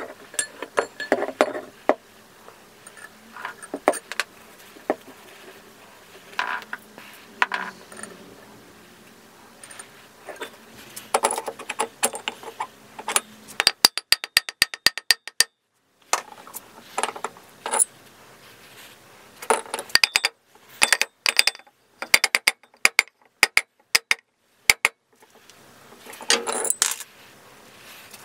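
Metal parts of a vintage bench grinder's motor, its cast end housings and rotor shaft, handled and knocked together: scattered clinks and knocks. Near the middle comes a fast run of sharp, ringing metal-on-metal taps, followed by several more clusters of taps.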